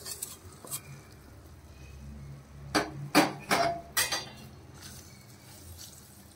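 A small metal tempering pan and wooden spatula knocking against the rim of a pressure cooker as the ghee tempering is scraped out: a few light clicks, then four sharp knocks in quick succession around the middle, one ringing briefly. Softer scraping of the spatula stirring the cooked rice and lentils follows.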